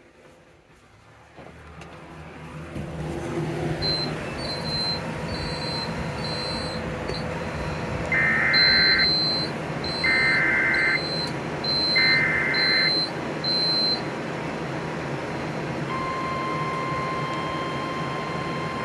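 NOAA Weather Radio Specific Area Message Encoding (SAME) alert header: three screeching data bursts, each about a second long and a second apart, under a steady hiss and hum. About 16 s in the steady weather radio warning alarm tone starts, signalling that a warning is coming. A series of short high-pitched beeps runs through the first half.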